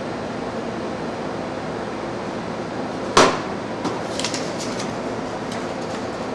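Orange plastic crates knocking as they are handled and pushed through a hatch: one sharp knock about three seconds in, then a few lighter clacks, over a steady background hum.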